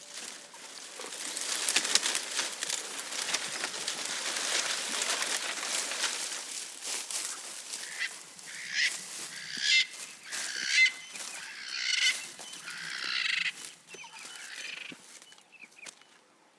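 Leaves and twigs rustling and crackling as a giraffe browses foliage, for the first several seconds. Then a bird calls about six times in short bursts, a second or so apart.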